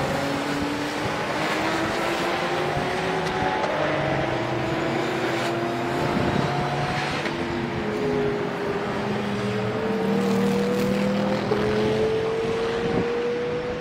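Several race car engines accelerating in turn, heard at a distance. Their overlapping notes climb steadily in pitch, and one drops at a gearchange about 11 seconds in.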